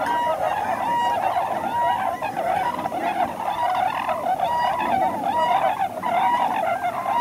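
A large flock of swans calling together: a dense, continuous chorus of many overlapping short, honking calls.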